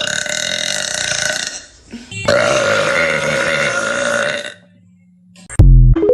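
A woman burping: two long, drawn-out burps of about two seconds each, then a short, very loud, deep one near the end.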